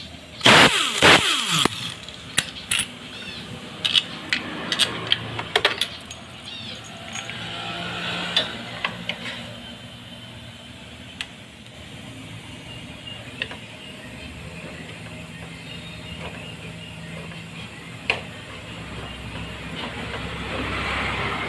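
An impact wrench runs in one short loud burst about half a second in, its whine sweeping in pitch, as it loosens a clutch cover bolt on a TVS Jupiter scooter. After it comes a string of sharp metallic clicks and clinks for several seconds, then scattered quieter tool-handling sounds.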